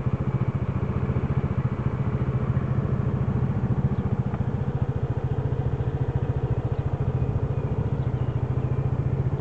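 Small motor scooter engine idling close by, with a steady, even putter at an unchanging pitch.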